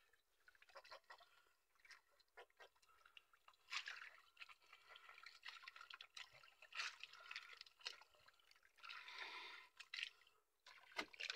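Faint, irregular drips and patters of water running off a wet gill net as it is hauled up by hand and fish are picked out of the mesh, with a brief wetter rush about nine seconds in.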